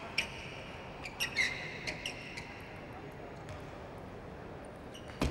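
Celluloid table tennis ball clicking several times in quick succession against the table and bat, then a pause, then one louder sharp ball strike near the end.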